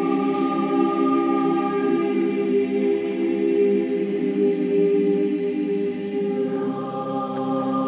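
Background music of sustained, choir-like chords; the harmony changes and the lowest notes drop away about six and a half seconds in.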